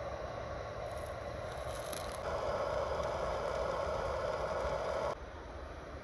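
Steady hiss of a small camp stove under a pan, with brief scraping as a tortilla pizza is slid into the pan. The hiss grows louder about two seconds in and stops abruptly about five seconds in.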